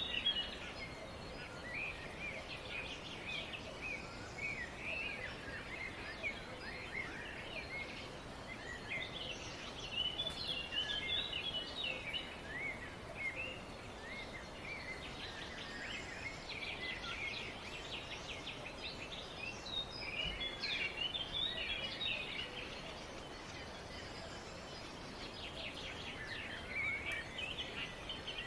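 Chorus of several small birds chirping and trilling together, high and busy, with denser bursts of song every few seconds over a steady background hiss.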